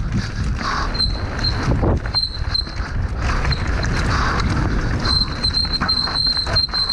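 Rush of wind on a helmet-mounted action camera with the rumble and rattle of a downhill mountain bike running over a dry, rooty dirt trail, full of quick knocks. A thin high whine comes and goes, holding steadiest near the end.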